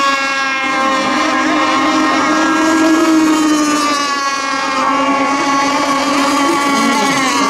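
Radio-controlled racing boats' engines running at high speed: a steady, high-pitched buzz whose pitch wavers and dips briefly about four seconds in and again near the end.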